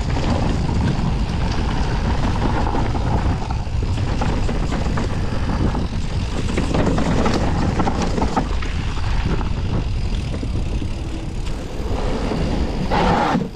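Mountain bike ridden fast down a bike-park trail: heavy wind rumble on the helmet camera's microphone, with the rattle and knocks of the bike over rough ground.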